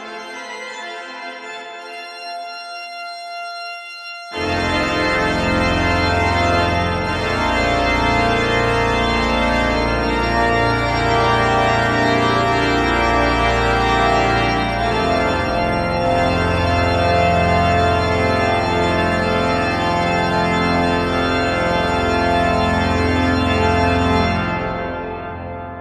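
York Minster's pipe organ playing: a soft held chord, then about four seconds in the full organ comes in suddenly with deep pedal notes and plays on loudly, dying away near the end.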